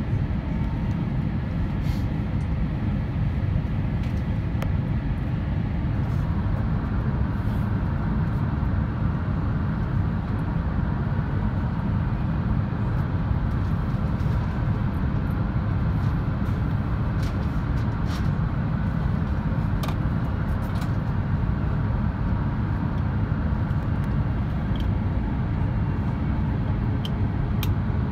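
Steady low cabin rumble inside an Airbus A350-900 on approach, heard from a window seat by the wing: airflow and its Rolls-Royce Trent XWB engines. A few faint clicks sound here and there.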